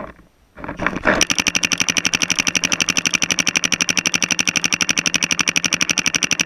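Paintball marker firing a rapid continuous stream of shots, about a dozen a second, starting about a second in and keeping up an even rhythm.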